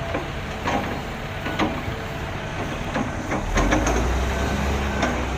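Heavy road-construction machinery running, with scattered sharp knocks; a deep engine rumble grows louder about three and a half seconds in.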